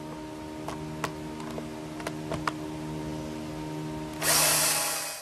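Power drill/driver running steadily as it drives a pocket-hole screw into old pine boards, with a few scattered clicks. About a second before the end it gets louder and harsher as the screw pulls in, then stops abruptly.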